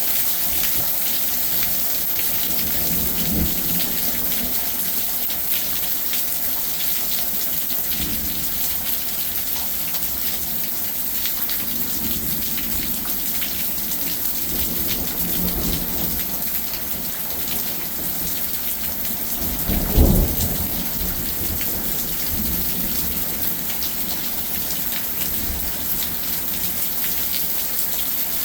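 Steady rain hissing, with several low rumbles of thunder and one short, loud thunderclap about twenty seconds in.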